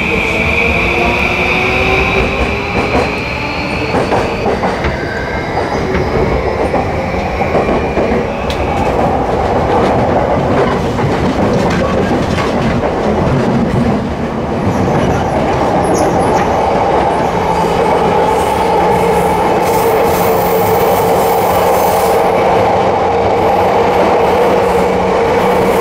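Running sound of a JR East E235 series Yamanote Line electric train with a Mitsubishi SiC-VVVF inverter. The inverter and traction-motor whine rises in pitch over the first several seconds as the train accelerates, then gives way to a steady rumble of wheels on rail at speed.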